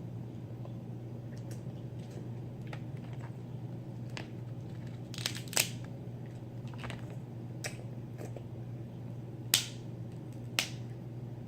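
Eating snow crab legs: scattered sharp cracks and clicks from working the shells and mouth while eating, about eight in all, the loudest about halfway through and near the end.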